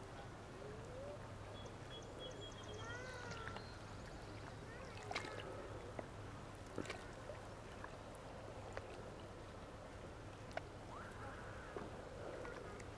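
Faint open-air ambience: a steady low hum, a couple of distant voices calling out with sliding pitch, and a few scattered sharp clicks.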